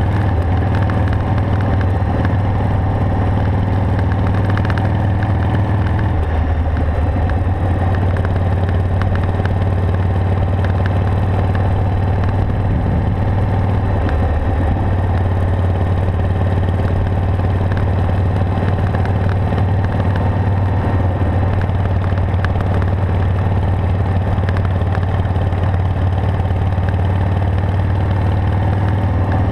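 Harley-Davidson Sportster 883's air-cooled V-twin engine running steadily as the bike rides along, with brief changes in pitch about six and fourteen seconds in.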